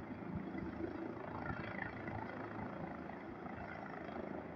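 Distant helicopter running on a rooftop helipad with its rotors turning, heard as a steady low drone.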